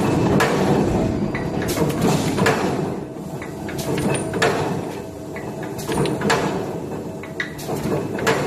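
BZQ-210 mechanical round-bar shearing machine running, its drive sounding continuously while the blade gives a sharp clank every second or two.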